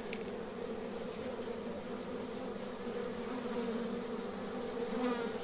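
A swarm of honey bees buzzing in a steady, even hum as they fly around and into a hive box.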